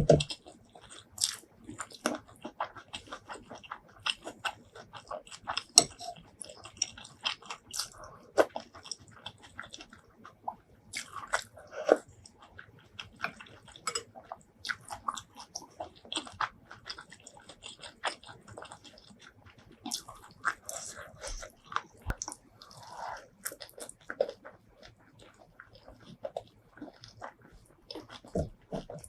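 Close-miked eating sounds: chewing and biting with many quick, irregular wet mouth clicks and occasional crunches.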